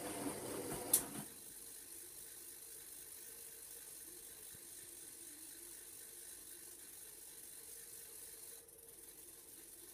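Hoover washing machine's inlet water flow, with a sharp click about a second in, after which the flow noise drops to a faint steady hiss.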